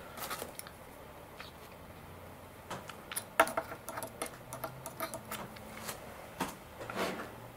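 Irregular small clicks and taps from hands handling fine wires held in a metal alligator clip against a carbon-fibre wing.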